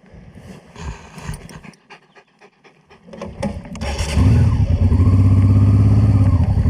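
A dog panting close by, with small jingling clicks from its collar bell. About three seconds in, an engine comes up and runs loud and steady at a low, even pitch, drowning everything else.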